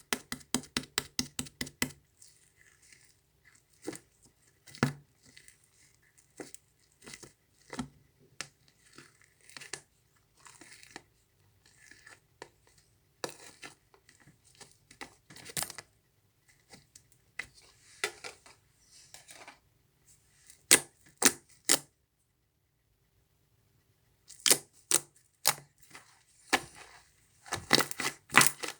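Large fluffy slime being squished and pressed by hand, giving quick runs of sharp crackling pops and scattered single clicks with short pauses between.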